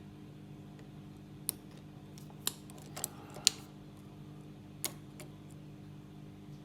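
Lock pick and tension wrench clicking in the keyway of a Master Lock 410 lockout padlock: about six sharp, separate metal clicks, the loudest a little past halfway, over a steady low hum.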